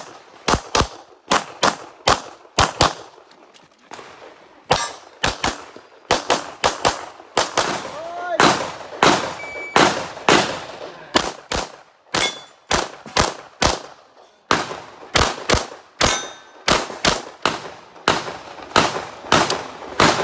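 Production-division semi-automatic pistol firing a long string of shots, mostly in quick pairs, with a few short pauses between strings.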